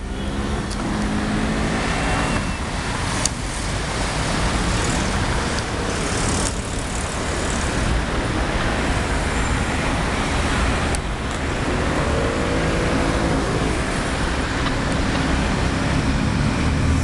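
Steady city street traffic: a continuous wash of car, truck and bus engines and tyre noise. A passing vehicle's engine note rises and falls near the start and again about twelve seconds in.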